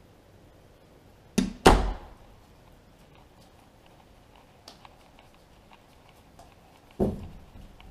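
Door thuds: two loud knocks in quick succession about a second and a half in, and another near the end, with faint taps between.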